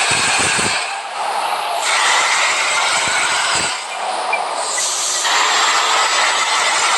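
Bus on the move: a loud, steady rush of engine and road noise with faint whining tones, dipping briefly about a second in and again about four seconds in.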